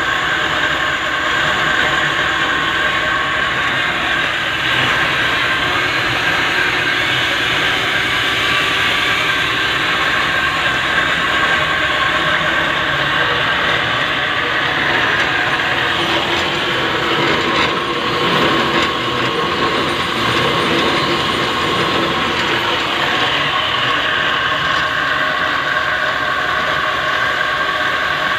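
Homemade line-boring machine running steadily: its motor and gear drive turn the boring bar in a backhoe boom pivot, a continuous mechanical whine with several steady tones over a gritty rattle.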